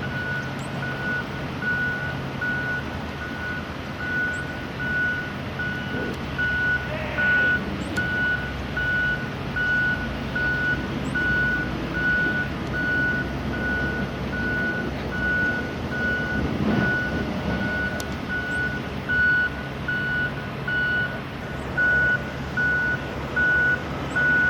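A reversing alarm on a construction vehicle beeping steadily, about one beep a second, over the low hum of an engine running.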